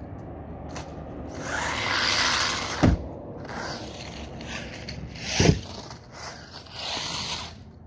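RC car's tyres scrabbling and skidding on concrete in several short scraping bursts, with two dull thumps, about three and five and a half seconds in.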